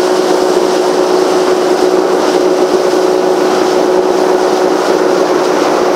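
Outboard motor of a shallow-water skiff running at a steady cruising speed, a constant whine over a steady rush of wind and water.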